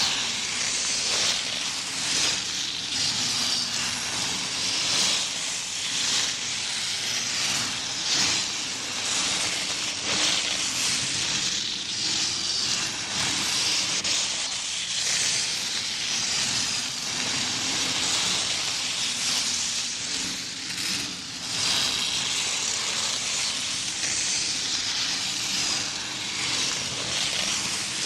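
Skis gliding and carving down a snow slope: a continuous hiss of skis on snow that swells and eases roughly every two seconds as the skier turns.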